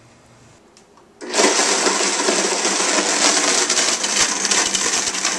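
Blendtec blender switching on about a second in and running at high speed, its blades grinding dried soybeans in hot water on the soup cycle to cook them into soy milk. It is a loud, steady, dense whir.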